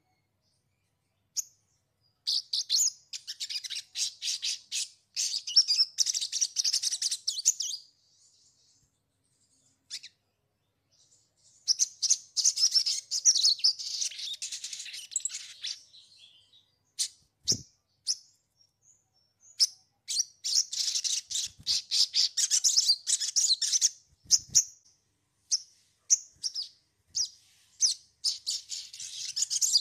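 Sogon song: long phrases of rapid, high chirping twitter, each lasting several seconds, four phrases with short pauses between them. A single low knock about seventeen seconds in.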